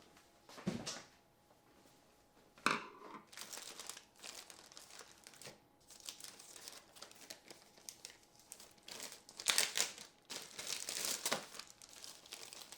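Small plastic parts bags being handled and opened, crinkling and rustling irregularly, with a burst of louder crinkling near the end.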